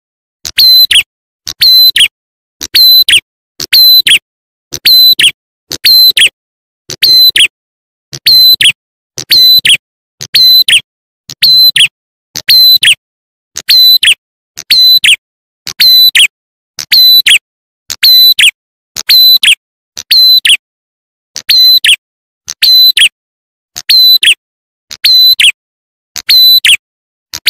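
Looped lure recording (suara pikat) of a prinia's call: a short, high chirp with a quick downward sweep, repeated identically about once a second.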